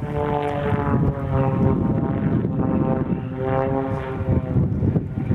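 Extra 330SC aerobatic plane's six-cylinder Lycoming engine and propeller droning through a display pass, the note swelling and shifting in pitch twice as it manoeuvres.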